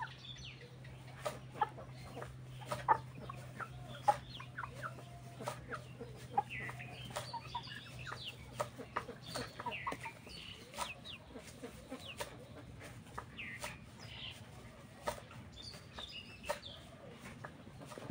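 Broiler chickens clucking and chirping in short calls scattered throughout, with a few sharp clicks. A faint steady low hum runs underneath and fades about halfway.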